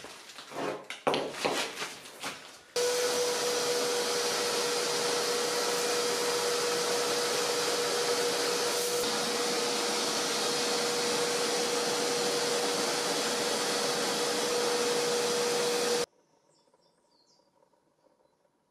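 A few irregular knocks and clatters, then a shop vacuum switches on and runs steadily with a constant whine, sucking insulation debris out of a hole drilled through a concrete screed floor. It cuts off suddenly about 16 seconds in.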